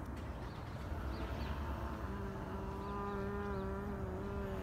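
Low, steady outdoor background rumble. About halfway in, a young man starts a long drawn-out vocal sound held on one low pitch, like a hum or drone.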